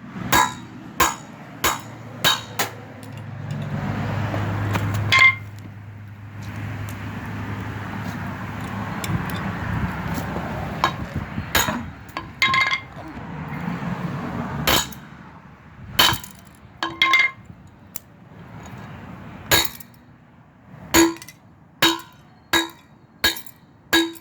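Toy car being struck again and again: an uneven run of sharp metallic clinks, many leaving a short ring, with scraping and handling noise between the strikes.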